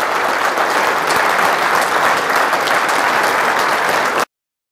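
Audience applauding, a steady wash of many hands clapping, which cuts off abruptly near the end.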